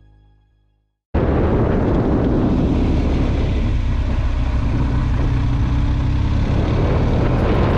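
Motorcycle engine running steadily at road speed under heavy wind rush on the onboard camera's microphone, cutting in abruptly about a second in.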